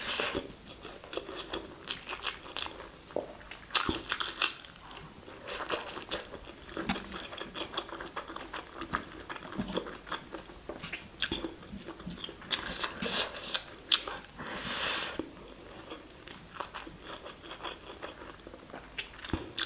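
Close-miked, wet chewing and mouth smacks of someone eating spicy mutton curry with rice by hand, with many irregular sticky clicks. A brief breathy hiss about three-quarters of the way through.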